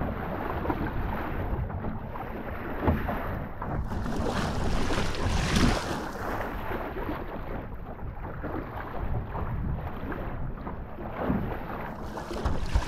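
Wind buffeting the microphone over a steady rush of water, with a louder gust about five and a half seconds in.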